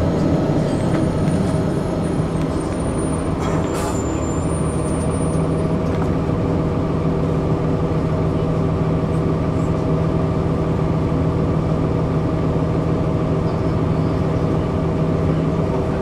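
Cummins ISC straight-six diesel of a 2002 Blue Bird CS bus running steadily under way, heard from inside the passenger cabin. A short hiss comes about four seconds in, after which the engine's low hum grows stronger.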